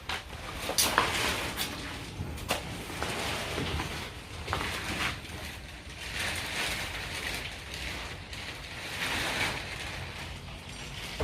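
Scattered light knocks and clicks of dryer parts being handled, over a rustling hiss.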